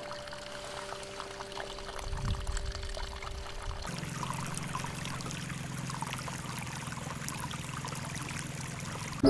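Water running or pouring steadily, with a low hum joining about four seconds in.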